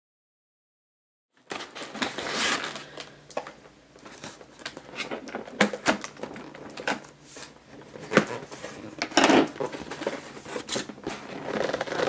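A cat crunching and chewing a cookie: a quick, irregular run of crisp crunches and clicks that starts after about a second and a half of silence.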